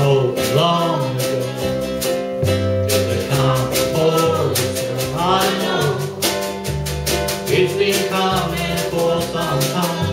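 Live band music: singing over strummed ukulele and guitar in a steady rhythm.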